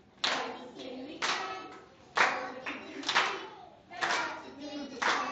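Group of young children singing a song together, clapping in unison on the beat about once a second.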